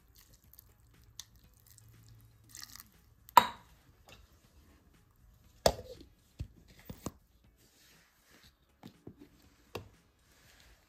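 A few sharp knocks and clatters from handling a steel mixer-grinder jar and fitting its clear plastic lid. The two loudest come about three and a half and six seconds in, followed by a few lighter taps.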